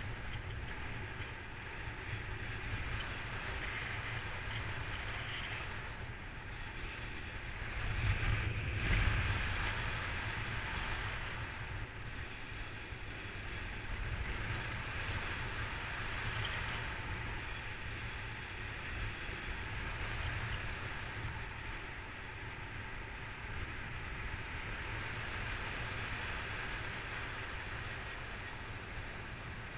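Wind rushing over the camera microphone during paraglider flight: a steady rumbling wind noise that swells in a stronger gust about eight seconds in.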